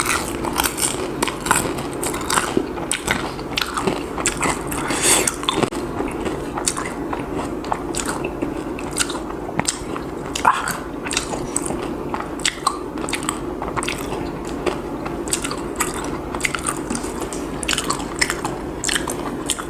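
Close-up biting and chewing of crispy fried food, with irregular sharp crunches throughout.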